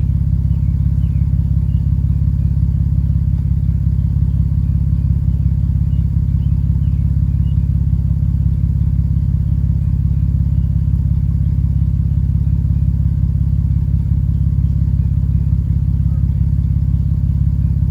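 Car engine idling steadily, heard as an even low rumble.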